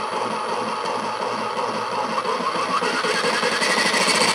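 Makita GRJ02 40V XGT brushless reciprocating saw running with no load, the blade stroking in the air. It grows gradually louder as the variable-speed trigger is squeezed further.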